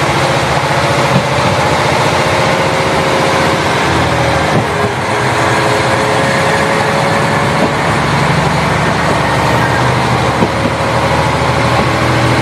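KiHa 40 diesel railcar running, its diesel engine droning steadily with a few short knocks.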